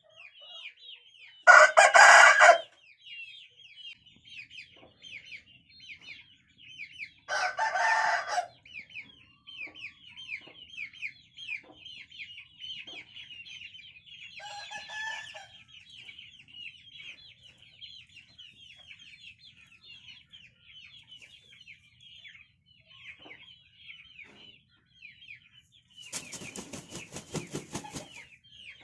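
Roosters crowing, with loud crows about two seconds and eight seconds in and a softer, clearer crow near the middle. A rapid pulsing burst comes near the end. A steady chorus of small birds chirps high in the background throughout.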